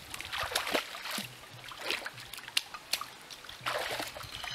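Water splashing and sloshing in a shallow rocky stream in several short, irregular bursts, over the stream's steady trickle.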